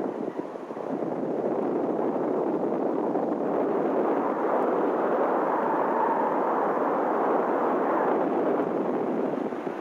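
Wind rushing over the microphone of a camera mounted on a hang glider in flight, a steady noisy rumble. It grows louder over the first few seconds, holds, and eases off near the end as the glider moves through an acrobatic manoeuvre.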